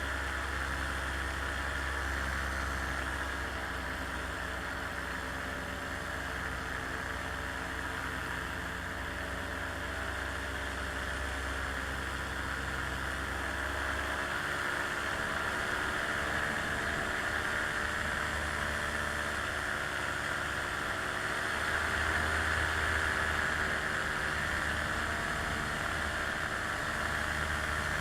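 Small plane's engine and propeller droning steadily in flight over a rushing hiss, the pitch drifting slightly and the low rumble changing about halfway through.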